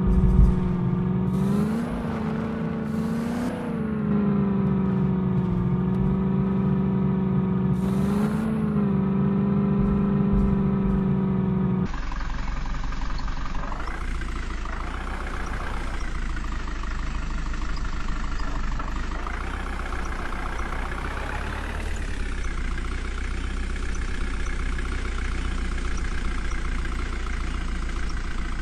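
Heavy diesel engine of earthmoving machinery running steadily, briefly rising in pitch a few times as it takes load. About twelve seconds in the sound changes abruptly to a rougher engine noise that swells and falls several times.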